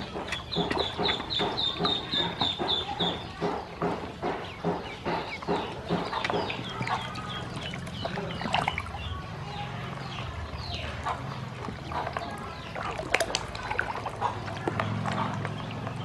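Ducklings peeping: a fast run of short, high peeps in the first few seconds, then scattered peeps that slide downward in pitch.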